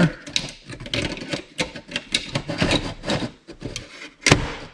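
Irregular clicks, rattles and scrapes of small plastic and metal parts being handled and pulled apart while a receipt printer is dismantled by hand, with one sharper, louder click near the end.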